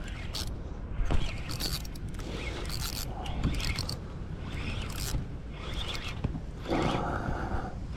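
Fishing reel being cranked in spurts while a hooked fish is played in, its gears whirring and scraping, over a low rumble of wind on the microphone.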